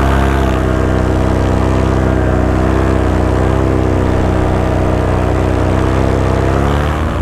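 Paramotor engine and propeller running steadily in flight at a constant throttle, its pitch shifting slightly near the end.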